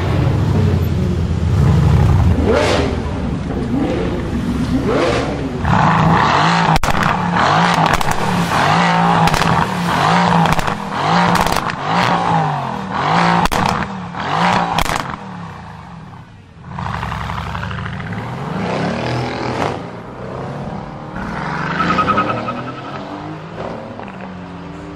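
Mercedes-AMG GT's twin-turbo V8 revved again and again as the car pulls away slowly, its pitch climbing and falling with each blip, with sharp exhaust crackles and pops in between. After a short lull it is revved up once more as the car drives off.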